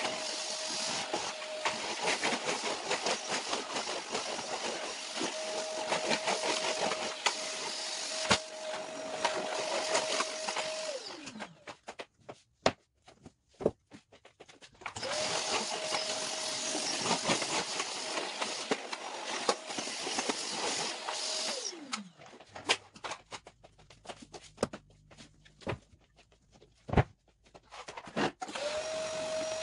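Canister vacuum cleaner running with a steady hiss and whine. It is switched off twice, the whine dropping in pitch as the motor winds down, and each time it starts up again a few seconds later. Scattered knocks and bumps come while it is off.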